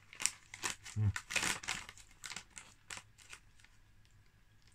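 Walkers crisp packet crinkling and rustling as a hand rummages in it, in a rapid run of crackles densest about a second in and dying away after three seconds. A brief low hum of voice comes with it about a second in.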